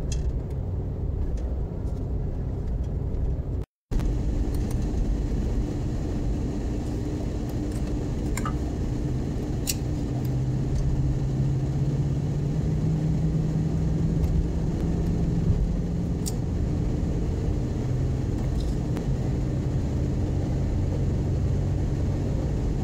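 Steady in-cabin drone of a car cruising on a freeway: engine and tyre road noise with a low hum and a few faint clicks. The sound cuts out completely for a moment about four seconds in, then resumes.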